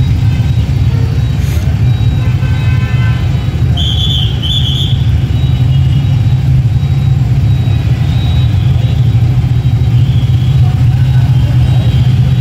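Steady low rumble of idling scooter and car engines in jammed city traffic. About four seconds in, two short high beeps come in quick succession.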